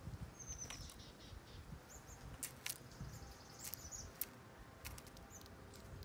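Small songbirds giving short, thin, high-pitched calls, one note falling in pitch, with several sharp clicks and a flutter of wings as a bird flies in to the seed-covered feeder post.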